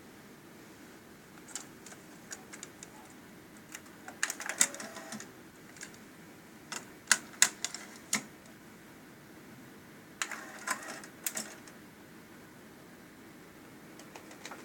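Sony TC-K850ES cassette deck's transport mechanism clicking and clattering as it struggles to engage, a hard start. Scattered single clicks, a burst of rapid clicking about four seconds in and another about ten seconds in, and a few sharp, louder clicks around seven to eight seconds.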